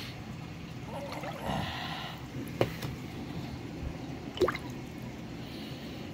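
Water splashing and dripping at the surface of a shallow fish pond, with two sharp splashes a couple of seconds apart.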